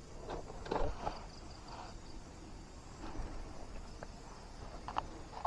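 Scattered light knocks, clicks and rustles of handling, a small cluster about a second in and a sharper click near the end, over faint outdoor background.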